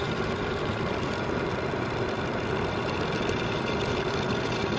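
Metal lathe running steadily with a short section of steel hydraulic pipe spinning in the chuck: an even machine whir with a constant tone, no change in speed.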